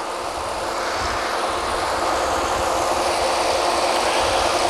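Drilling rig machinery running: a steady mechanical rumble and hiss that grows gradually louder.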